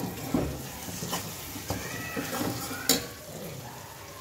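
Onions sizzling in hot oil in an aluminium kadai while a metal spoon stirs them, scraping and clinking against the pan. The loudest clink comes about three seconds in.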